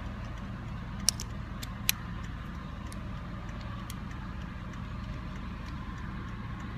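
A few sharp metallic clicks from a Leatherman Wingman multitool being handled and unfolded, the two loudest about one and two seconds in. Under them runs a steady low vehicle hum.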